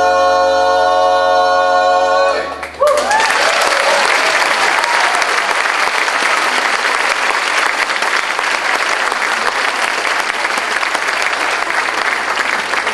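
A men's barbershop chorus holds the final a cappella chord of a song and cuts off about two and a half seconds in. The audience then breaks into sustained applause with a few shouts at its start.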